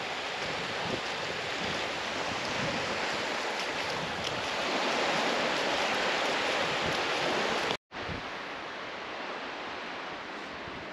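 Small waves washing onto a sandy beach: a steady hiss of surf that grows a little louder before cutting out for an instant about eight seconds in.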